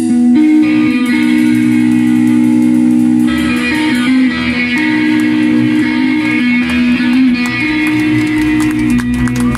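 Live rock band playing a song's closing bars: electric guitar sustaining ringing chords, with the band filling in about three seconds in and the bass coming in low later. Hands start clapping near the end.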